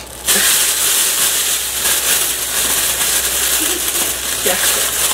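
A steady, loud hiss, with faint voices now and then.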